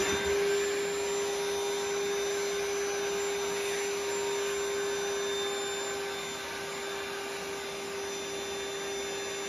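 Vacuum cleaner running with a steady whine, its hose nozzle held at a freshly drilled wall-plug hole to suck out the drilling dust as it is blown from the hole.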